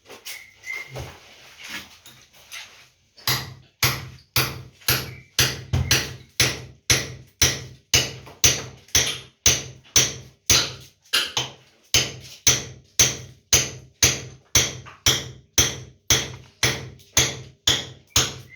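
Steady hammering on a wall, about two blows a second, beginning about three seconds in, each blow ringing briefly.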